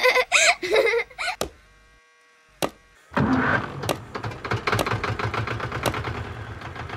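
A small child giggling briefly, then near silence with one click; about three seconds in a tractor engine starts and keeps running with a rapid, even chugging beat.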